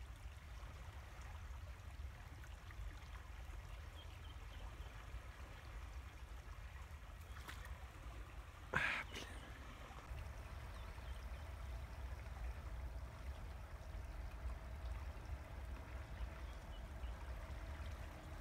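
River water flowing and trickling, faint and steady, over a low rumble. One short knock about nine seconds in.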